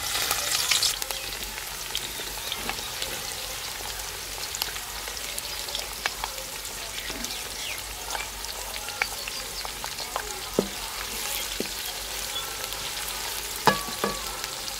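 Chopped onions hitting hot cooking oil in a metal karahi: a loud sizzle as they go in, then steady frying. A few knocks near the end as a wooden spatula stirs them against the pan.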